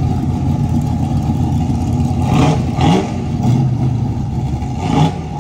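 A vehicle engine running steadily and loudly, with a brief rev about three seconds in and a couple of short louder blips.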